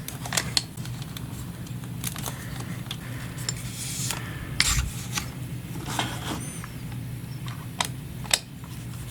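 Hands handling a monopod and camera-mounting hardware: scattered clicks, taps and light metal scraping, the loudest a knock with a dull thud about halfway through, and a short squeak a little later, over a steady low hum.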